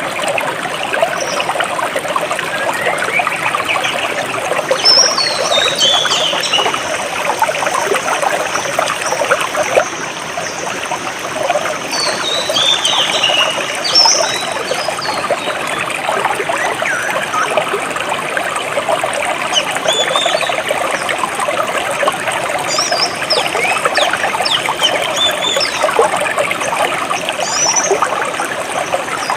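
Clear jungle stream trickling and babbling steadily. Birds chirp above it: short, falling runs of high chirps about five seconds in, again around twelve to fourteen seconds, and scattered chirps near the end.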